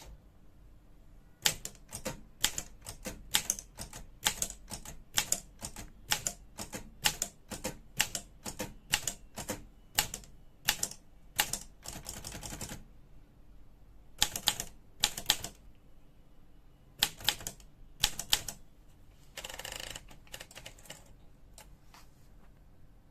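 Olympia SM3 portable manual typewriter being typed on: sharp keystrikes at about two to three a second, then shorter runs with pauses between them. Twice the strikes give way to a longer noisy sound lasting about a second or more.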